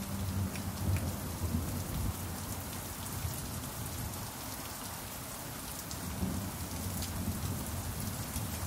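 Steady rain falling, with faint scattered drop ticks and a low rumble underneath; no drum notes sound.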